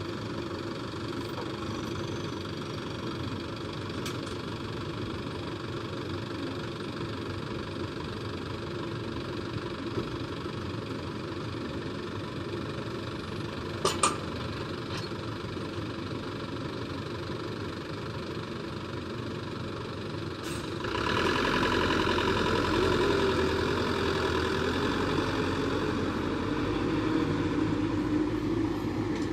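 A JCB backhoe loader's diesel engine running steadily, then revving louder about two-thirds of the way through as the machine works under load. Two short sharp knocks come near the middle.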